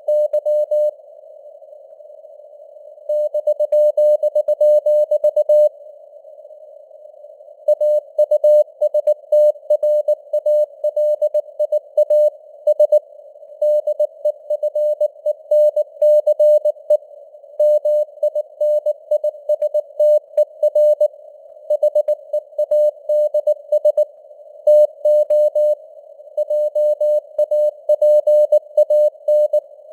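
Morse code (CW) sent at 19 words per minute: a single steady mid-pitched tone keyed on and off in dots and dashes over a faint hiss of simulated radio noise. The keying breaks off twice in the first eight seconds, between words, and then runs on without a break.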